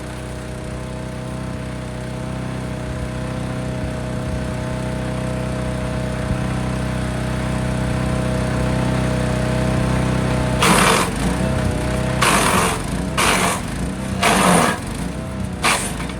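Forest Master FM8DD wood chipper's engine running steadily. From about ten seconds in come several short, loud bursts as branches are fed in and chipped, with the engine note dipping under each load.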